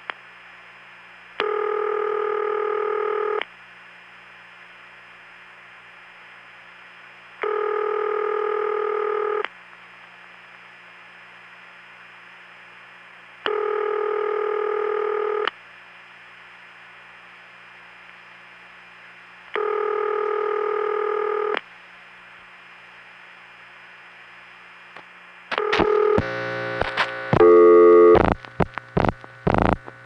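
Ringback tone of an analog long-distance telephone call, ringing four times at the standard two seconds on, four seconds off, over faint steady line hum: the far end is ringing unanswered. Near the end, clicks and a buzzing razz of sped-up rotary dialing start the next call.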